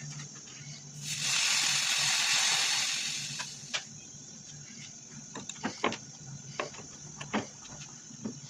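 A loud hiss lasting about two seconds, starting about a second in, then scattered sharp cracks and pops of ice.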